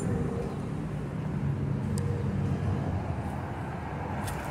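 A motor vehicle's engine running nearby, a steady low hum that eases off a little about a second in, over faint outdoor noise.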